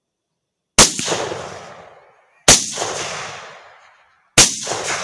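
Three rifle shots fired at hogs, less than two seconds apart, each followed by a rolling echo that dies away over about a second and a half.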